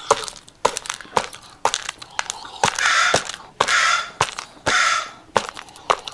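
Wild turkey pecking food from a bowl: quick, irregular beak taps against the bowl, with three longer scraping, rustling bursts in the middle as it works through the food.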